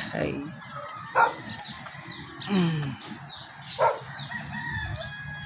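Chickens calling, three short loud calls about a second, two and a half and four seconds in, the middle one falling in pitch.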